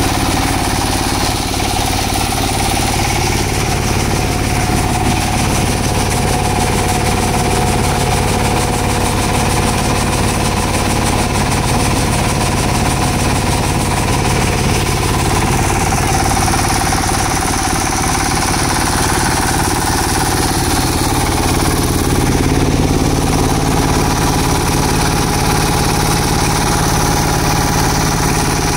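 Concrete vibrator paver running steadily, its engine and vibrating screed giving a constant hum and buzz as it compacts and levels fresh concrete.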